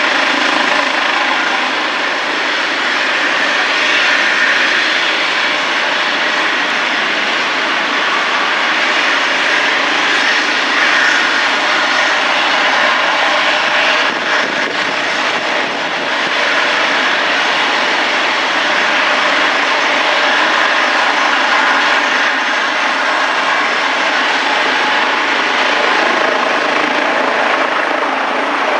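Eurocopter EC135 helicopter running on the ground with its main rotor turning, ahead of take-off: a steady turbine whine with rotor noise.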